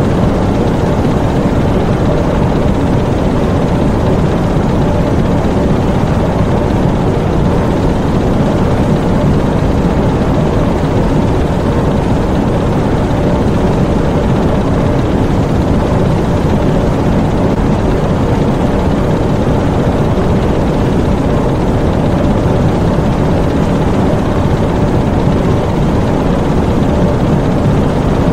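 Diesel U-boat engine room: the submarine's diesel engines running with a steady, loud drone.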